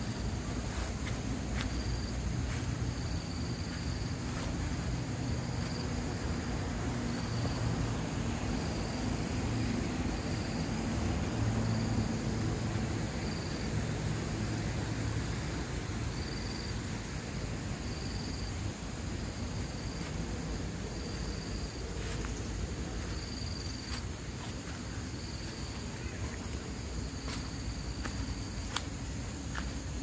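An insect chirping in short, high pulses about once a second, over the steady sound of shallow water flowing down a concrete drainage channel, with a low rumble and a few faint clicks.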